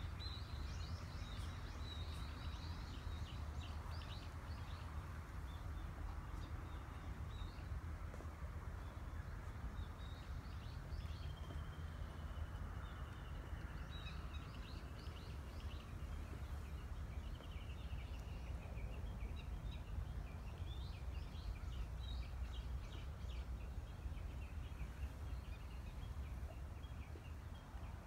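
Several small birds singing in the trees, short high chirps scattered throughout with a longer trill about eleven seconds in, over a steady low outdoor rumble.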